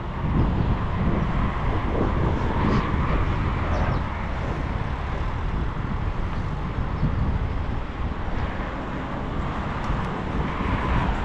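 Steady street traffic noise from passing vehicles, with wind rumbling on the microphone of a moving bicycle.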